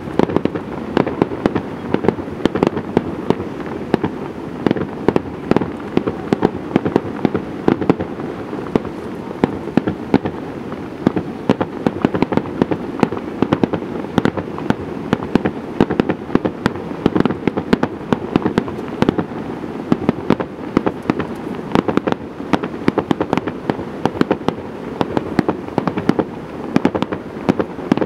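Aerial fireworks bursting in quick succession: many sharp bangs a second, the cracks piling over a continuous low wash of their own echoes across the city.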